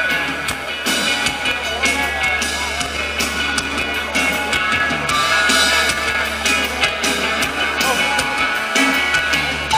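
Live rock band playing loud: distorted electric guitars over drums with frequent cymbal hits and a steady bass underneath.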